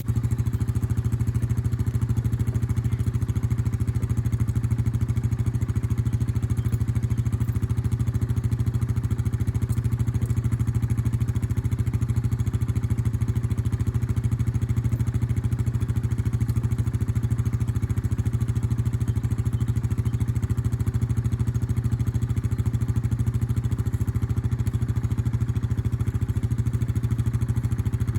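A small engine running steadily at a constant speed, close to the microphone, with an even low drone.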